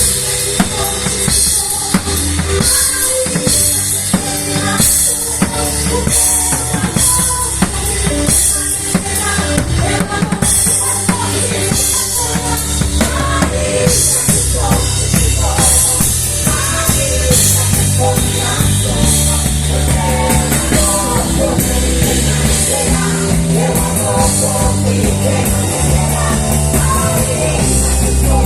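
Live gospel band playing an instrumental passage, with drum kit (bass drum, snare, cymbals) and bass guitar.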